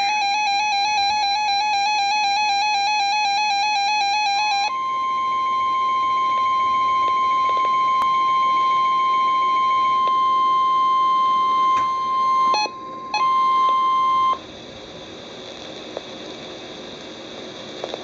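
NOAA weather radio alert: a warbling electronic alert tone for about five seconds, then the steady 1050 Hz NWS warning alarm tone for about ten seconds, which breaks up briefly near its end. Low radio hiss follows once the tone stops.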